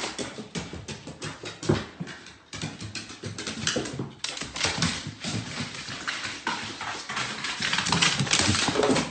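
A dog's claws and paws tapping and knocking on bare wooden stairs as it goes down, step by step, in an uneven run of clicks and thumps.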